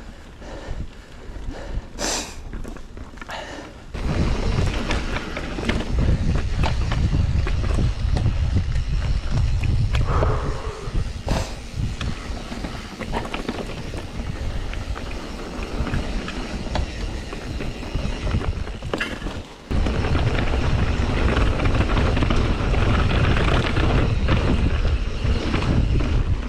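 Mountain bike rolling over a dirt trail: tyre rumble and knocks and rattles from the bike, with wind buffeting the microphone. It gets much louder and rumbling about four seconds in, drops off briefly near twenty seconds, then picks up again.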